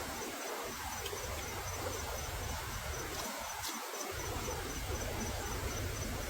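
Outdoor ambience: an insect chirping in a steady, evenly pulsed high tone over a low rumble and hiss.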